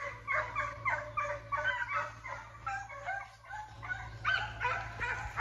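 Several young foxhounds baying as they run, a rapid run of overlapping calls with a short lull about three seconds in.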